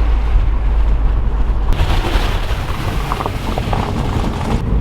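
Car driving, with a loud, steady low rumble of wind buffeting the microphone. The noise turns brighter about two seconds in.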